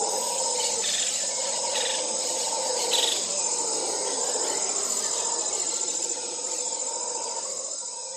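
Jungle ambience: a dense, steady chorus of insects with a lower droning tone under it, and a few brief sharper calls in the first three seconds. It slowly fades down toward the end.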